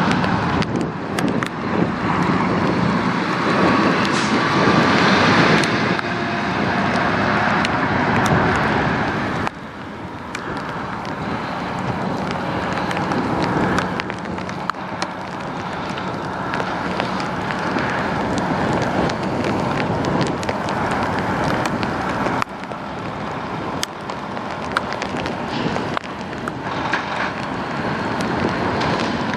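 A Kenworth T680 semi truck's diesel engine pulling away and driving past. After a cut about ten seconds in, a Volvo VNL730 semi tractor pulls in slowly, its diesel engine running over tyre and road noise.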